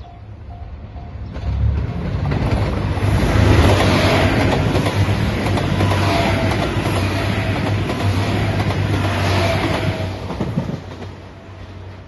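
A JR Shikoku 2700 series diesel multiple unit passes close by: a rising, then steady, loud rumble of the diesel engines and the wheels on the rails. It drops off near the end as the train draws away. A level-crossing bell dings faintly at about three a second in the first second.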